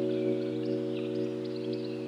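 Background music: a held keyboard chord slowly fading, with short high chirping notes above it.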